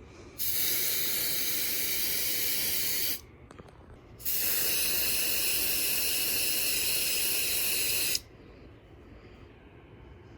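Aerosol can of smoke-alarm test spray hissing in two long bursts, about three and four seconds long, with a short pause between. No alarm sounds in response: the smoke alarm is failing its smoke test.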